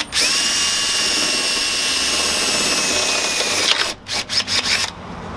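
Cordless drill with a 5/16-inch bit drilling through the steel of a Mazda Miata's inner fender. Its motor runs in one steady whine for about three and a half seconds, then gives several short bursts.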